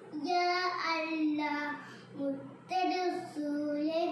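A young boy singing solo, unaccompanied, in long held notes: two phrases with a short pause for breath about two seconds in.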